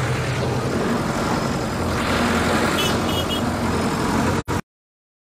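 Tractor engine running amid crowd noise, with three short high beeps about three seconds in. The sound then cuts out abruptly to dead silence a little after four seconds.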